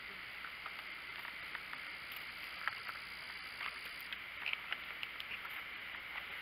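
Footsteps through forest undergrowth: leaves and twigs rustling and snapping in scattered small clicks over a steady faint hiss.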